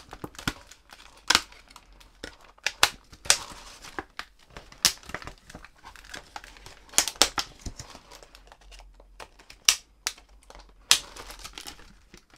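Stiff clear plastic blister packaging crackling and clicking as it is handled and pried open, with irregular sharp crinkles; near the end a thin plastic zip bag of soft baits rustles as it comes out.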